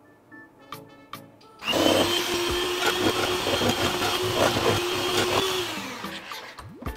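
Electric hand mixer beating chocolate frosting of powdered sugar, cocoa, butter and Coca-Cola: after a quiet start with a few light taps, the motor switches on a little under two seconds in and runs with a steady whine, then winds down and stops near the end.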